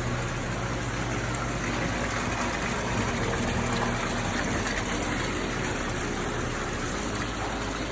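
Steady rush of running, splashing water over a low, even pump hum, as from a bait store's circulating bait tanks.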